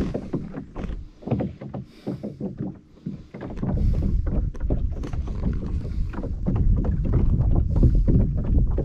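Small jon boat moving on a creek: irregular splashes and knocks of water and gear against the hull, with wind buffeting the microphone from about three and a half seconds in.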